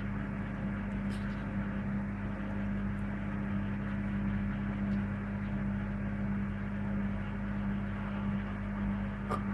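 Servis Gem M310 washing machine on its spin, giving a steady hum with an even whirring noise and a few faint ticks.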